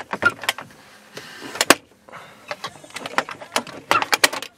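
Hard plastic removable table being moved and set in place, giving a run of sharp clicks and knocks with a brief scrape a little over a second in.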